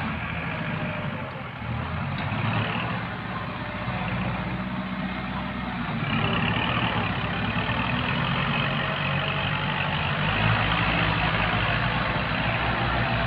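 Farm tractor's diesel engine running steadily while it pulls a disc plough through the soil. It grows louder about halfway through and again near the end.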